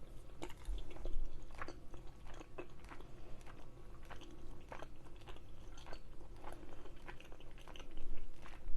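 Close-up mouth sounds of a person chewing a mouthful of chicken tikka masala: irregular wet clicks and smacks. The chicken is juicy and the sauce is thick.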